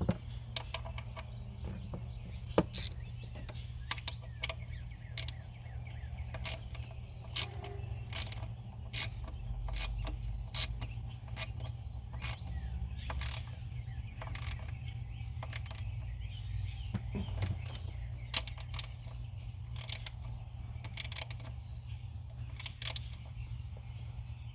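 Hand tools and metal parts clicking and clinking at irregular intervals during engine work, over a steady low hum.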